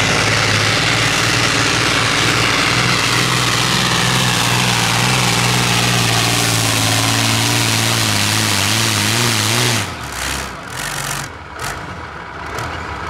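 Modified pulling tractor's diesel engine running flat out under load, its pitch slowly sagging as the weight sled drags it down, then wavering and cut off suddenly near the end of the pull. A quieter rumble with a few sharp knocks follows.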